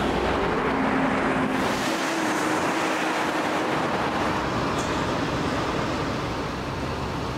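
Steady road traffic noise of a busy city street, cars passing on a wide boulevard.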